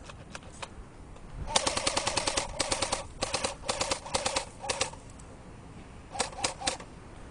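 Airsoft electric gun firing on full auto close by: several rapid bursts of shots with the gearbox's whine under them, starting about a second and a half in, then a short burst of three or four shots near the end. A few faint single pops come in the first second.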